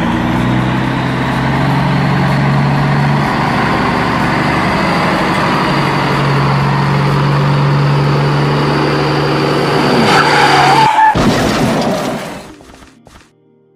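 Truck engine sound effect running steadily, with a short tyre squeal about ten seconds in, then fading away.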